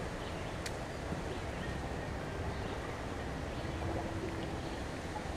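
Wind buffeting the microphone over small waves lapping against an aluminium boat, with one sharp tick about a second in.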